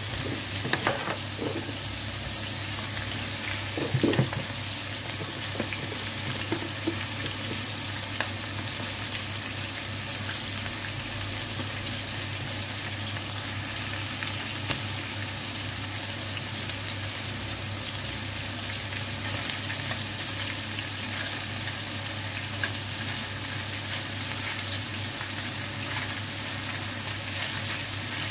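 Chicken pieces sizzling steadily as they fry in oil in a wide pan, over a low steady hum. A few short knocks sound in the first few seconds.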